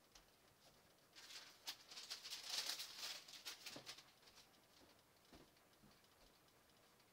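Rustling and crinkling of packaging being handled for about three seconds, starting about a second in, then a few faint taps.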